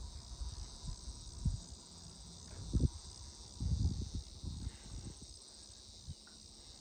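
Steady high-pitched insect chirring, with irregular low thumps and rumbles that are loudest about three to four seconds in.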